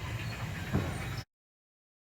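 A low steady rumble with one short thump about three-quarters of a second in. The sound then cuts off abruptly to dead silence just over a second in.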